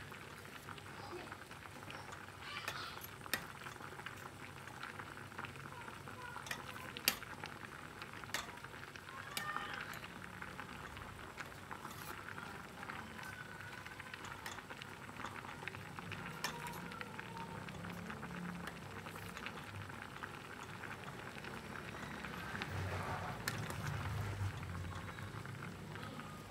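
Pumpkin chunks boiling in water in a stainless steel pot, bubbling steadily. A few sharp clinks of a metal ladle against the pot.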